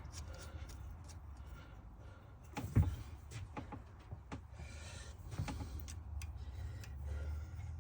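Small metal parts clicking and knocking as a countersunk steel screw is handled and fitted into a freshly tapped hole, over a low steady hum. There is a cluster of sharp clicks about three seconds in, the loudest of them first, and a few more about two and a half seconds later.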